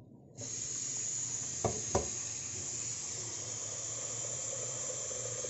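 Tap water running steadily into a stainless steel pot in a sink, starting just after the beginning, with two light knocks of metal about a second and a half in.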